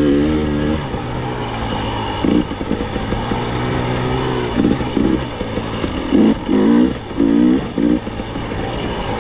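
KTM 300 two-stroke dirt bike engine running, revved in short bursts of throttle several times over a steady low note.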